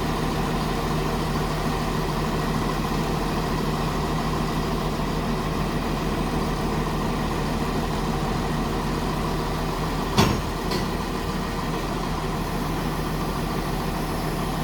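A machine running steadily at a constant pitch, with one sharp knock about ten seconds in.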